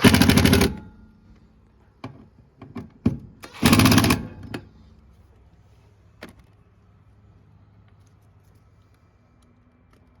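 Drill driving screws to fasten a new furnace collector box: two short bursts of rapid ratcheting about three and a half seconds apart, with a few light clicks of screw handling between them.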